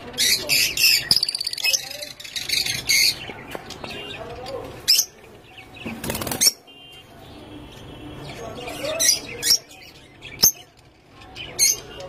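Rosy-faced lovebirds in a wire cage flapping their wings in bursts, with a flurry near the start and another about halfway through. Short, sharp rising chirps come in the second half.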